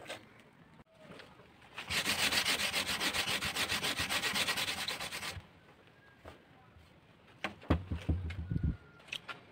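A round sanding disc held flat in the hand and rubbed fast over a painted wooden tabletop: a scratchy run of rubbing strokes lasting about three and a half seconds. A few low bumps and knocks follow near the end.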